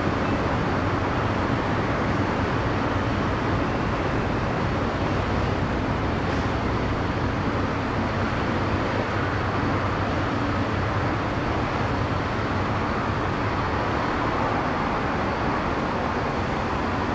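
Ferry's diesel engine running, a steady low hum and rumble under a constant rushing noise.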